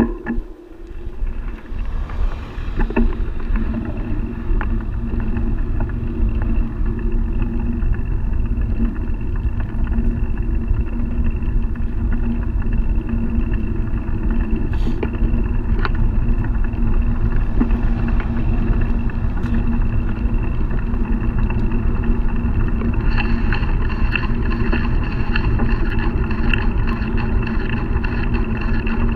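Steady rumble of wind and tyres on asphalt, heard from a camera riding on a moving touring bicycle, with a few constant hums running through it; a higher steady whine joins near the end.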